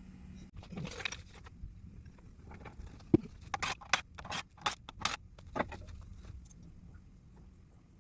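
A scatter of light, sharp clicks and clinks, bunched most thickly between about three and a half and six seconds in.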